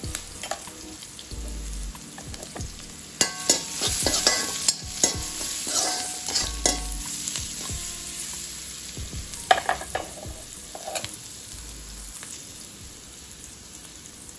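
Sliced onion and spices sizzling in oil in an aluminium kadai while a metal slotted spoon stirs and scrapes against the pan. The clatter and scraping come in runs about three to six seconds in and again near ten seconds, and the sizzle grows quieter toward the end.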